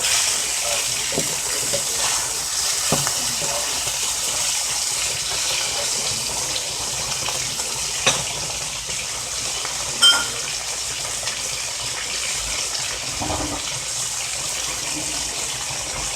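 Steaks frying in butter in a hot pan, a steady sizzling hiss. Two short clicks cut through it about eight and ten seconds in, the second ringing briefly.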